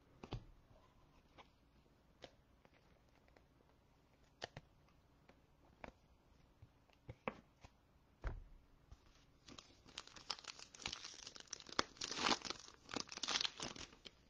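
A 2021 Phoenix football trading-card pack's foil wrapper being torn open and crinkled by hand for the last few seconds, loudest shortly before the end. Before that come a few light taps and a dull thump as the packs are handled and set down on the mat.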